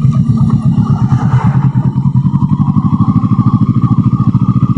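Kawasaki ER-6n's parallel-twin engine running at a steady speed while the motorcycle is ridden, an even pulsing engine note.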